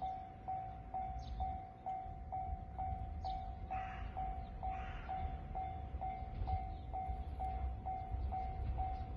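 Japanese railway level-crossing warning bell ringing steadily, an electronic ding about twice a second, the signal that a train is approaching the crossing.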